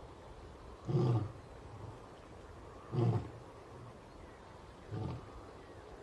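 Lion roaring in its grunting phase: three deep grunts about two seconds apart, the last one weaker.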